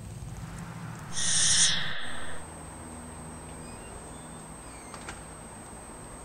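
A loud, harsh bird screech starting about a second in and lasting just over a second. Under it runs a low rumble that cuts off sharply at about two seconds.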